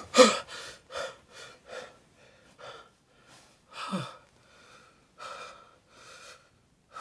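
A man's sharp gasp on waking in fright from a nightmare, followed by quick, shaky breaths that come further apart as he calms down, with a short falling voiced breath about four seconds in.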